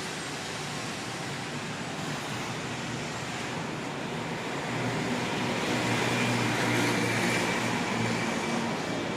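City street traffic, with a motor vehicle's engine passing close by and growing louder from about halfway through, then fading near the end.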